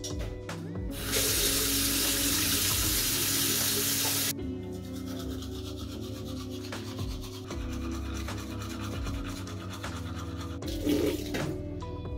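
About a second in, a loud rush of running water lasts about three seconds and cuts off abruptly. A toothbrush then scrubs back and forth on teeth with a rough rubbing sound. Music plays underneath throughout.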